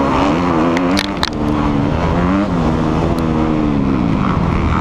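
Four-stroke motocross bike engine, a 2014 Kawasaki KX250F, revving hard while racing, its pitch rising and falling with throttle and gear changes. A few sharp clicks about a second in.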